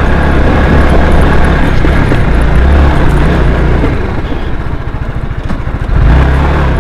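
Honda CBR150R's single-cylinder four-stroke engine running under way on a rough dirt trail. About two-thirds of the way in it drops to low revs with a plain, even pulsing as the throttle is released, then picks up again near the end.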